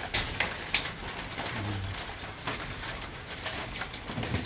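Wall light switch being flicked: three sharp clicks within the first second, with fainter ticks later, as the toilet block's light comes on.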